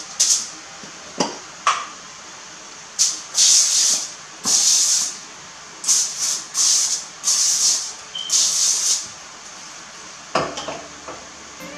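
Aerosol cooking-oil spray can giving about ten short hissing sprays onto sheets of aluminium foil, most in quick succession from about three seconds in, with a few light knocks in between.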